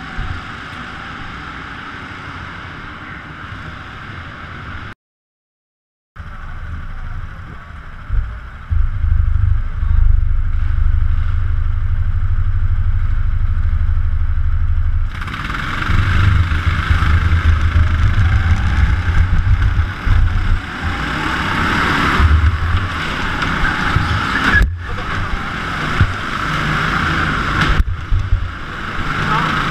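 Go-kart engine heard from a camera mounted on the kart. It runs at low pace at first and cuts out completely for about a second five seconds in. Heavy rumble and vibration then set in, and from about fifteen seconds in the kart is at full throttle, the engine pitch rising and falling through the corners.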